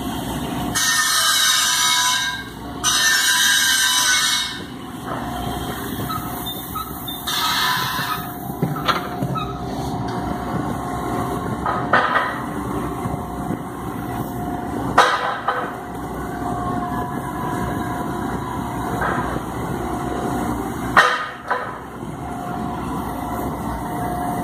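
Gas-heated sand core-making machine running with a steady mechanical rumble. Several bursts of loud hissing come in the first eight seconds, and a few sharp metallic clanks follow later as the machine is worked and cores are handled.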